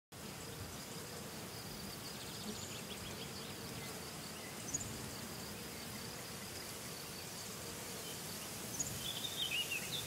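Meadow ambience: insects buzzing steadily, with a few short bird chirps, the loudest cluster near the end.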